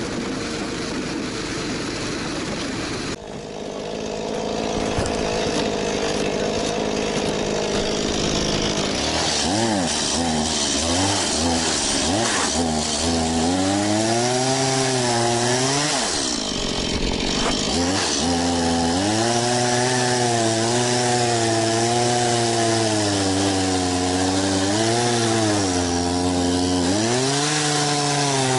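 Two-stroke chainsaw cutting firewood, its engine pitch rising and sagging again and again as the chain bites into the wood, with a short let-off about two thirds of the way through. For the first three seconds another engine runs steadily before a sudden cut.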